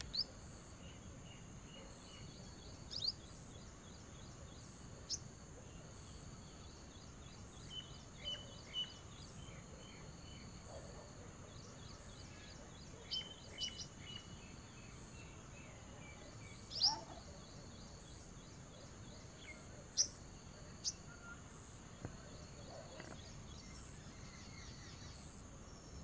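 Small birds giving short, high chirps and brief trills, scattered and irregular, over a steady high hiss of background noise. A couple of louder chirps come a little past the middle.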